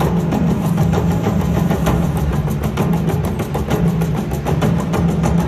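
Electronic bonus music from an IGT Cats Wild Serengeti video slot machine during its free games, with rapid percussive clicks and hits over a steady low drone.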